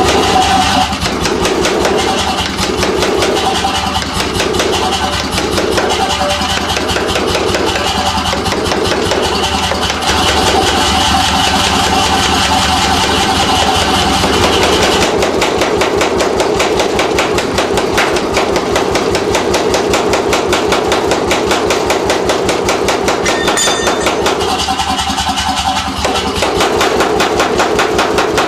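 Mechanical power hammer running and striking hot steel in a rapid, continuous train of blows while a hammer head is forged. Its low motor hum drops away about halfway through while the blows go on.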